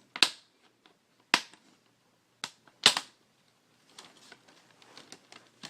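Plastic snap-clips of a laptop's screen bezel popping loose as it is pried off by hand: four sharp snaps, the loudest about three seconds in. After that comes faint crackling of the plastic.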